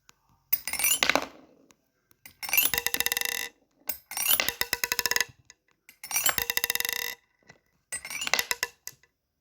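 A metal fidget toy clicking and ringing in five separate bursts of about a second each, every burst a rapid run of clinks that fades out.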